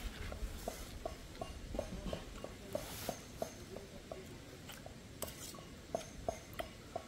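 Faint clinks of a metal utensil against a cooking pot or plate, over a steady series of short, low chirps at about three a second.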